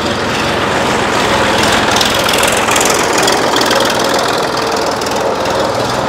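An engine running steadily with a fast, even rattle.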